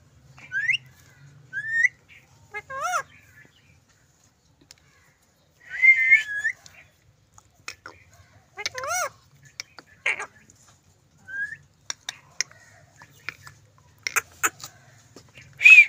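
Parrot whistling and calling in short separate notes, mostly quick rising whistles every second or two, with a longer wavering call about six seconds in.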